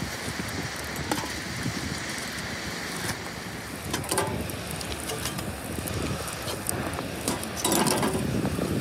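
Wood fire crackling in a samovar's firebox, with scattered sharp pops over a steady rushing background, and a louder rustling stretch near the end.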